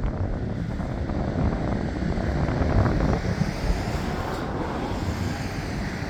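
Wind buffeting the microphone, a steady low rumble that rises and falls.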